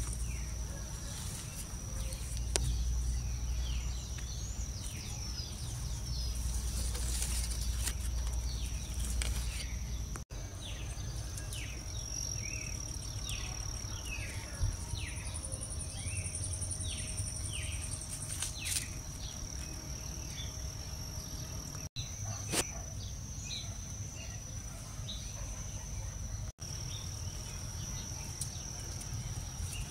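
Garden ambience: an insect trills steadily at a high pitch, while a bird gives short falling chirps over and over through the first two-thirds. A low rumble runs underneath.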